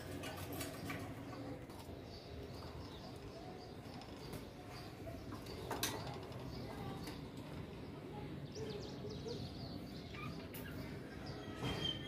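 Caged budgerigars chirping and chattering softly, with a sharp click about six seconds in.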